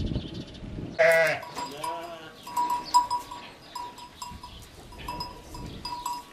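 A flock of sheep: one sheep bleats loudly about a second in and another bleats just after, then a small bell clinks on and off as the sheep move.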